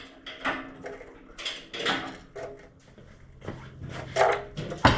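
Irregular metal clunks and knocks as a hoist-hung engine is rocked by hand, its motor mounts shifting against the subframe, with a louder knock near the end as the second mount comes out of its hole.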